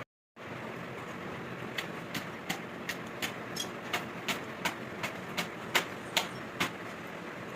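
A run of light, evenly spaced hammer taps on metal, about three a second for several seconds, some leaving a short ring.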